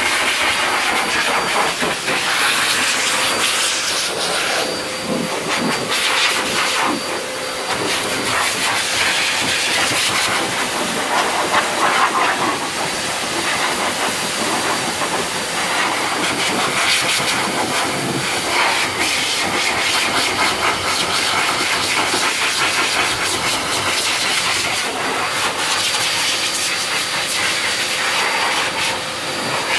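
High-velocity dog dryer (waterblazer) blowing a steady hiss of air over a bobtail's coat. The rush of air wavers in strength, and a faint high tone runs under it.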